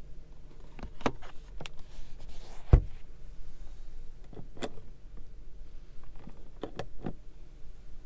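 Plastic clicks and knocks of a Ford Bronco Sport's interior trim being handled: the sun visor's vanity mirror cover and the visor are pushed shut, with one heavier thump about three seconds in, then more clicks from the overhead console a few seconds later.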